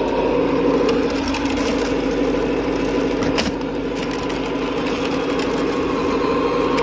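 Simulated diesel truck engine sound from a GT Power multi-function sound unit in a Tamiya King Hauler RC tractor unit, running steadily as the truck drives, with a thin steady whine above it.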